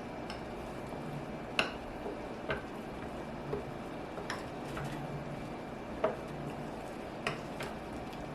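Utensil stirring corn-cake batter in a mixing bowl, knocking lightly against the bowl now and then: single sharp clicks at uneven gaps of about a second or so.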